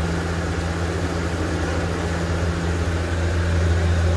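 A steady low motor hum with an even hiss over it, unchanging throughout.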